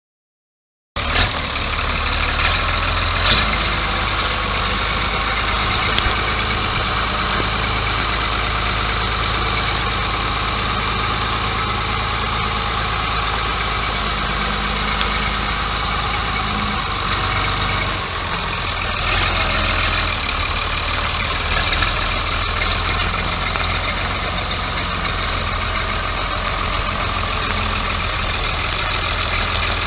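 Case IH 5230 tractor's 5.9-litre six-cylinder diesel engine (Case IH 6-590) idling steadily, its low tone shifting slightly about two-thirds of the way through.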